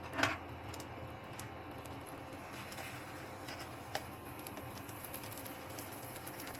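Kitchen preparation handling sounds: a short knock just after the start, then scattered light clicks and taps and a sharper click about four seconds in, over a steady low hum.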